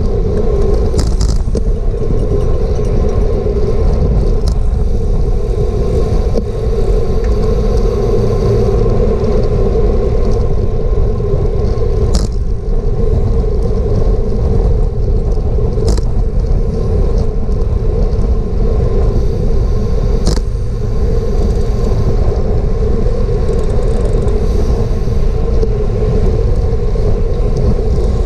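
Steady rumble of wind and tyre noise on a racing road bike's action-camera microphone at race speed, with a few sharp clicks spaced several seconds apart.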